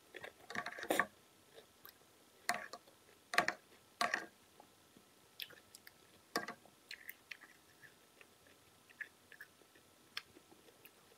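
Close-up mouth sounds of a person chewing and biting food, with irregular short crackly smacks, louder and denser in the first half.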